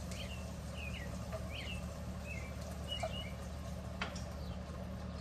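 A small bird chirping, about eight short, quick calls over a few seconds, over a steady low hum. A single click about four seconds in.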